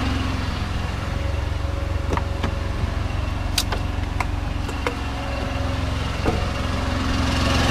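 Truck engine idling with a steady low drone, with a few sharp clicks and knocks from handling the cab door and fittings.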